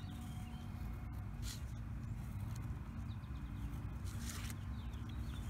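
Faint bird chirps over a steady low outdoor rumble, with two brief hissing sounds, one about a second and a half in and one near the end.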